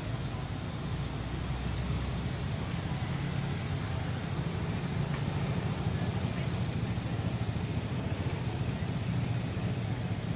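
Steady low outdoor rumble, like distant road traffic, with a couple of faint ticks around three and five seconds in.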